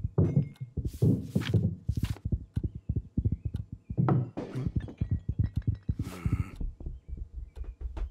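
Cartoon sound effects of a cat's paws thundering around the room at a gallop: a rapid, uneven run of thumps, with a few louder scuffling, rushing noises mixed in.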